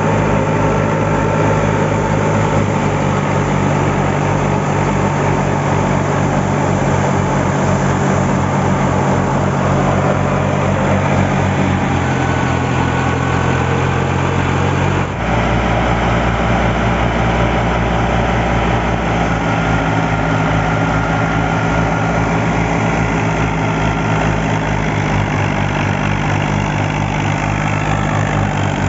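Fiat 480 tractor's three-cylinder diesel engine running steadily under load, driving a wheat thresher through its PTO shaft, with the thresher running along with it. The engine's steady throb changes abruptly to a different pitch about halfway through.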